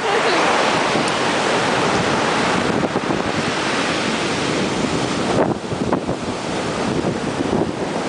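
Ocean surf breaking on a sandy beach, a steady rush of waves mixed with wind buffeting the microphone.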